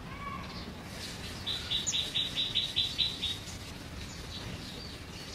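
Bird chirping: a quick run of about nine short high notes a little after a second in, with a few single chirps around it over a low steady background hum.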